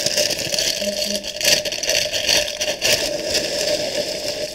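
Dry cereal being poured from its box into a bowl: a continuous noisy rattle of small pieces, with the box and bag rustling.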